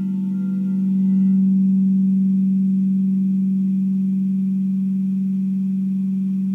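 Frosted quartz crystal singing bowl sounding one low, steady hum. It swells for about the first second, then slowly fades as its higher overtones die away.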